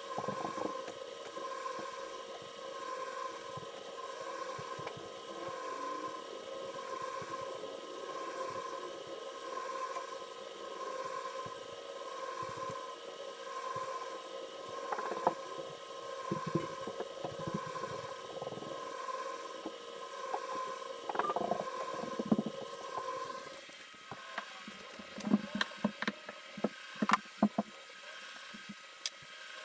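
A steady hum with two tones, pulsing in a regular rhythm, under scattered clicks and knocks from hands working on parts in a car's wheel well. The hum cuts off abruptly near the end, leaving a few sharp clicks.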